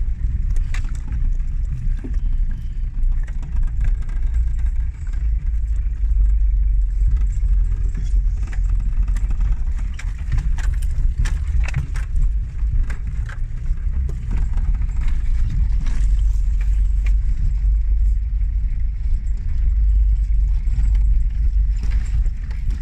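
A car driving, with a steady low rumble and frequent small rattles and knocks throughout.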